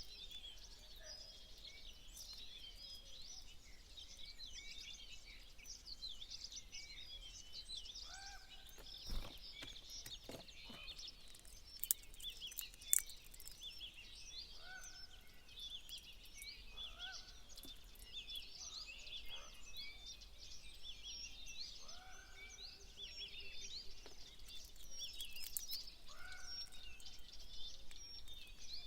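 Many small birds chirping and twittering continuously, with a lower two-tone call from another bird repeating every two to three seconds. A few brief knocks sound about a third of the way through.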